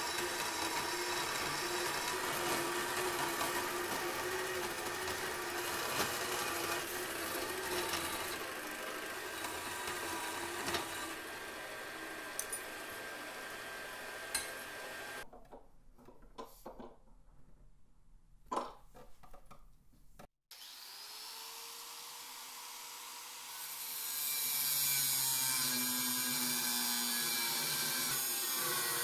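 A band saw runs and cuts through a rusty steel pruning-shear blade with a steady whine. About halfway through it falls quiet, leaving a few clicks and knocks. Later an angle grinder with an abrasive disc runs up and grinds the steel with a loud, high hiss.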